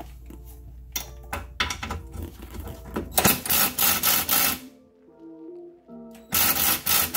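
Two spells of rapid metallic clicking over background music: a ratchet with a half-inch socket working the golf cart's front spring-plate bolts loose. The longer spell runs from about a second in to past the middle, and a shorter one comes near the end.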